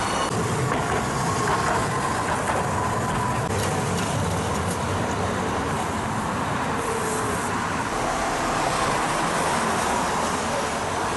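Hiroden streetcar running on street-level tram tracks amid steady road traffic noise.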